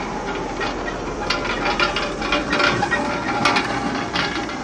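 Dense clicking and rattling: many small sharp knocks close together.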